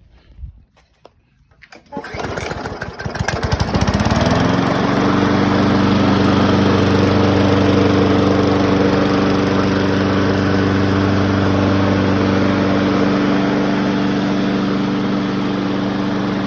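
Weed Eater walk-behind lawn mower's small engine pull-started: it catches about two seconds in, revs up, and from about four seconds runs steadily at speed.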